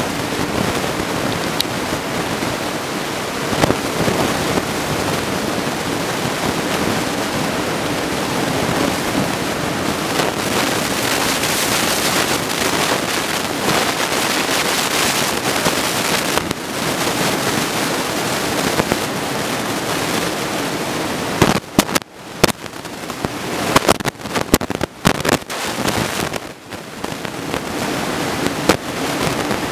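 Steady rush of breaking ocean surf mixed with wind on the microphone. About two-thirds of the way through, the sound breaks up for several seconds into crackling bursts and short dropouts.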